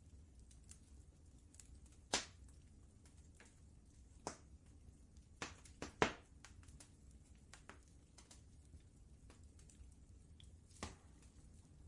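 Wood fire crackling: irregular sharp pops and snaps, two louder ones about two and six seconds in, over a faint steady low rumble.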